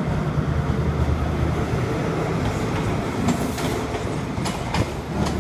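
HST power car (Class 43, MTU 16V4000 diesel) running past, its engine drone strongest for the first couple of seconds. Its coaches then roll by, with the wheels clicking over rail joints from about three seconds in.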